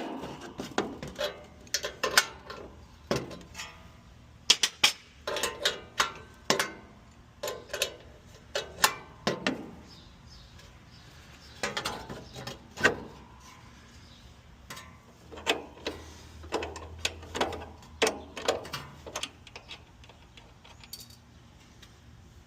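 Irregular metallic clicks and clinks of hand tools and metal parts being handled, coming in clusters with short pauses between them.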